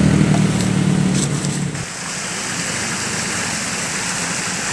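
An engine running steadily for about the first two seconds, cut off abruptly and replaced by the steady rush of flowing stream water.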